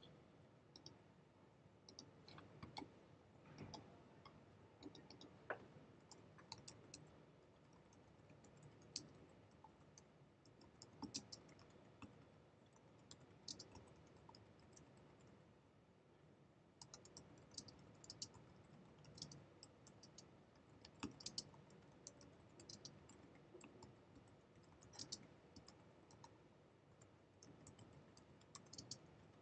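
Faint typing on a computer keyboard: irregular key clicks in short bursts with pauses between them.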